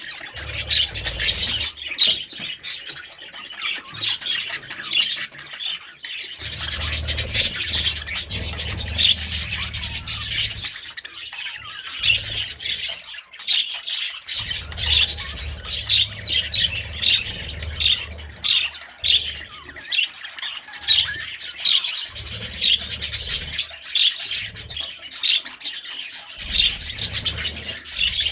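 A flock of budgerigars chattering, with a dense, unbroken stream of short squawks and chirps.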